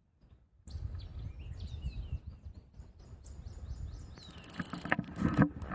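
Birds chirping, short falling calls, over a steady low rumble. Starting a few seconds in, a quick run of clicks as the baitcasting reel is cranked.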